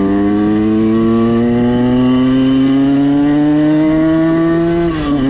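Tuned 85 cc Simson S51 two-stroke moped engine pulling under acceleration, its pitch climbing steadily. The pitch drops suddenly about five seconds in as it shifts up a gear, then holds steady.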